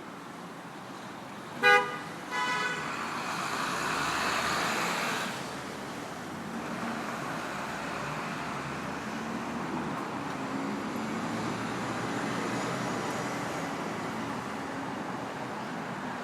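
A car horn honks twice in street traffic: a short, sharp toot about two seconds in, then a second honk straight after. A vehicle then passes, followed by steady city traffic noise.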